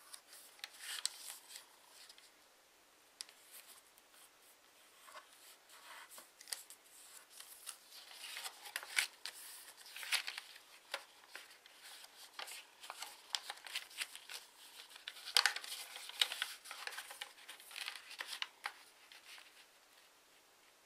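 A pre-creased sheet of origami paper being folded and collapsed by hand: irregular crisp rustles and crinkles, with sharper crackles as creases are pressed flat, busiest in the middle and dying down near the end.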